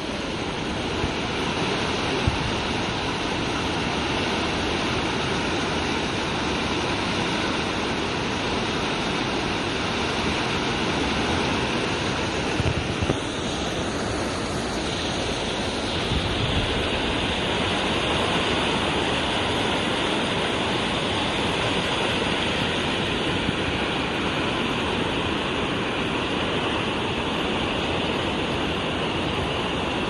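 Fast, muddy river rushing past in a steady wash of turbulent water.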